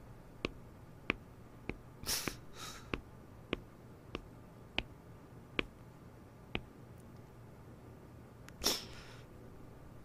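Footsteps of hard-soled shoes on a hard floor, about one step every 0.6 seconds, stopping about six and a half seconds in. Two short breathy hisses, one about two seconds in and a louder one near nine seconds.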